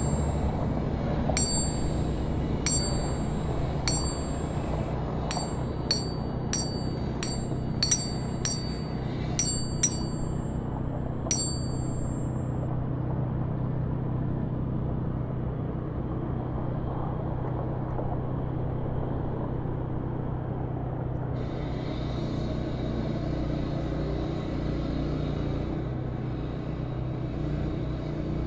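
Chimes ring in a run of separate bell-like strikes over a steady low rumble, then stop. Later, cars pass on a road with a steady tyre hiss.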